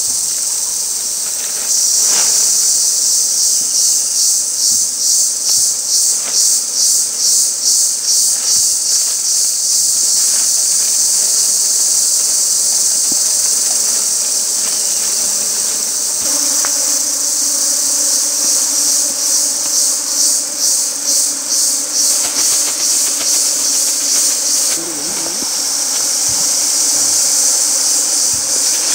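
A loud, high-pitched insect chorus that swells and fades about twice a second, with stretches where it runs steadily.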